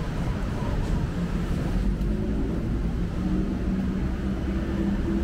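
Steady low rumble of city traffic, with a faint even drone joining about two seconds in.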